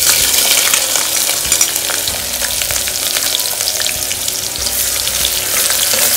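Sliced onion tipped into hot oil with whole spices in a pressure cooker: a sudden loud sizzle that carries on steadily, with fine crackling, as the onion starts to fry.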